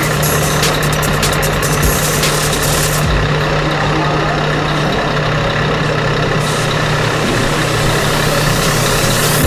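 RC Scania truck's sound module playing a diesel truck engine through its loudspeaker, idling steadily.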